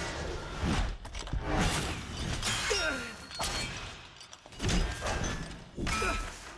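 Fight sound effects of armoured combatants clashing: a run of about six sharp impacts and metal-on-metal hits roughly a second apart, with whooshes of blade swings.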